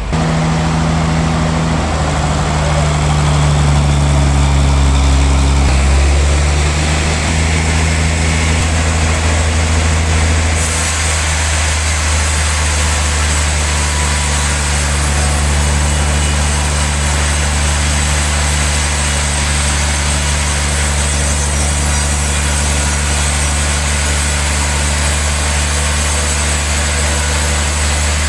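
Heavy sawmill machinery running with a steady low engine-like hum, its pitch shifting in the first several seconds and then holding steady. About ten seconds in, a high hiss joins and continues over the hum.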